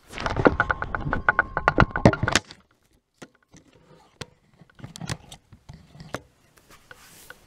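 Handling noise from a hand-held camera being carried: a dense run of rubbing and knocks for about two and a half seconds, then a few scattered clicks and taps as it is set down on the floor.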